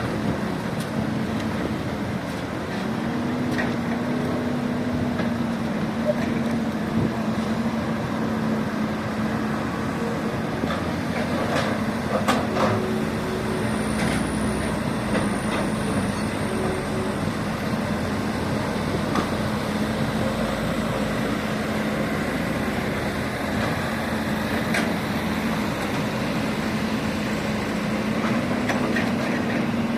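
Electric motors of radio-controlled model construction vehicles running with a steady hum. The pitch steps up about three seconds in and again near the end, and there are a few scattered clicks.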